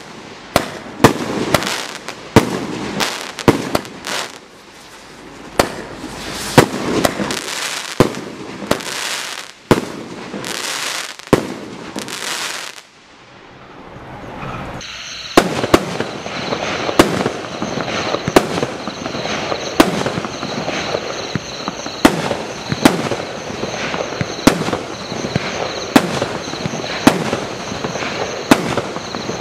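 Primed Pyrotechnics 1.3G consumer firework cakes firing. The Loaded Dice cake sends up a rapid string of launch thumps and crackling bursts that dies away about thirteen seconds in. After a short lull the Aces High cake starts, firing sharp shots a little under a second apart over a steady high-pitched whistle.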